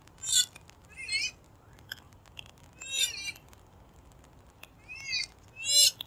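Purple swamphen calling: about five short calls at uneven gaps, each bending up and then down in pitch. The loudest come near the start and near the end.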